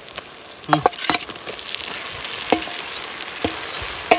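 Food sizzling in a hot pan, louder from about a second in, while a metal spoon strikes the pan about five times, each strike ringing briefly.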